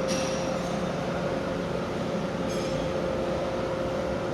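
Steady mechanical hum with a constant high whine over it, with light metallic clinks at the start and again about two and a half seconds in.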